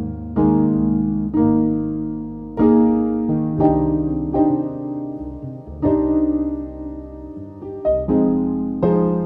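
Slow, gentle piano music: chords struck roughly once a second, each left to ring and fade.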